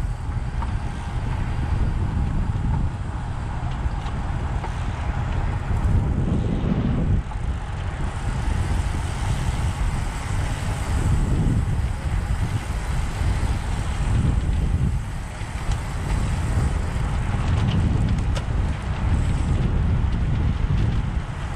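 Wind rushing over the microphone while a road bike is ridden at race speed: a loud low rumble that swells and eases every second or two.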